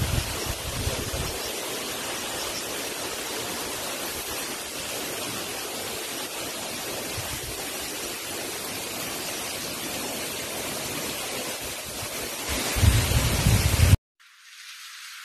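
Steady rushing outdoor noise, with low rumbling buffets on the microphone about two seconds before it cuts off suddenly. A thinner, quieter hiss follows.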